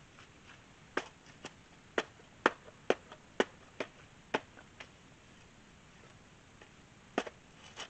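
A steel shovel blade chopping and scraping into red clay mud that is still frozen in places: a run of sharp knocks about two a second, a pause, then two more strikes near the end.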